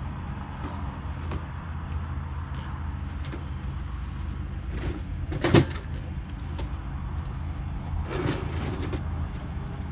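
Wire-mesh rabbit cage rattling and clicking as the young rabbits inside move about, with one louder knock a little past halfway and a smaller one near the end, over a steady low rumble.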